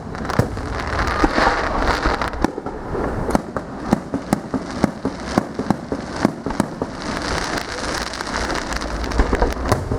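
Fireworks display going off, with many sharp bangs and crackles in quick succession.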